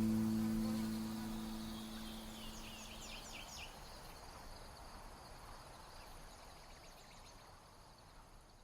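The last chord of an acoustic guitar song dies away over the first few seconds, leaving a steady insect chorus, with a quick run of bird chirps about three seconds in.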